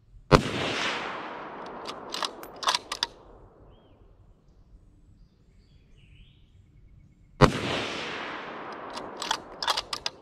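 Two bolt-action rifle shots about seven seconds apart, each a sharp crack followed by an echo that fades over about two seconds. After each shot comes a quick run of sharp metallic clicks as the bolt is worked to eject the spent case and chamber the next round.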